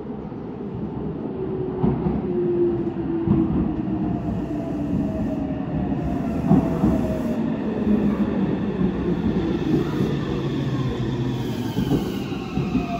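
Meitetsu 2000 series μSKY electric train pulling into the platform: its motors whine in several tones that glide steadily down in pitch as it slows. Wheel clatter and rumble grow louder as it comes alongside.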